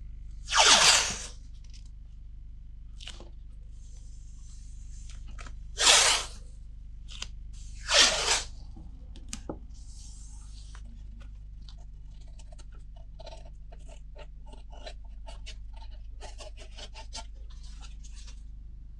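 Masking tape pulled off the roll in three loud, short rips, followed by a run of small crinkles and taps as the tape is pressed and handled along the billhook's blade.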